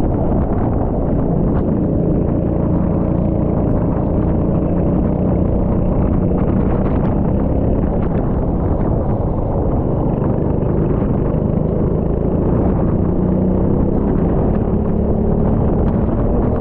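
Rental go-kart engine running under load, its pitch rising and falling slowly as the kart is driven on the circuit, over a steady low rumble.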